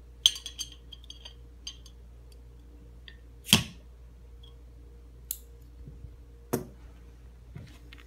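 Metal nail clippers clicking and scraping against a beer bottle's crown cap, then a single sharp pop about three and a half seconds in as the cap is pried off. Two more sharp clicks follow later.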